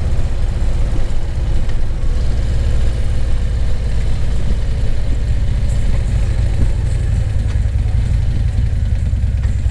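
Harley-Davidson CVO Street Glide V-twin engine running steadily on the road, a deep low engine note heard from the rider's helmet with a fainter rushing haze above it.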